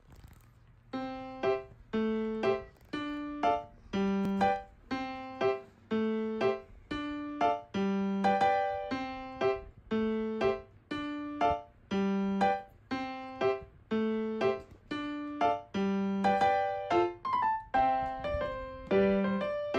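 Background music: a light piano melody of evenly spaced notes, about two a second, starting about a second in.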